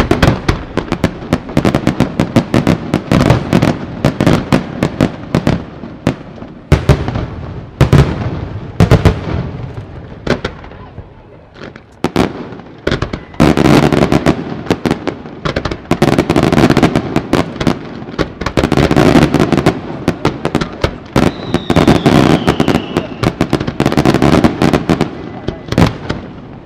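Fireworks display: aerial shells bursting in quick succession, loud bangs with crackling between them, thickening into dense crackle in the second half. A brief falling whistle sounds about two-thirds of the way through.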